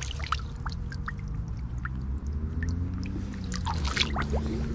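Hands and a landing net moving in shallow river water: scattered small splashes, drips and trickles over a steady low rumble.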